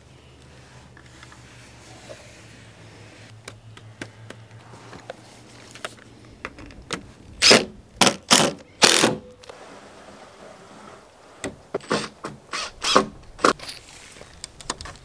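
Cordless drill driving screws into a wooden frame in short bursts: four loud bursts about halfway through, then a few shorter ones a few seconds later.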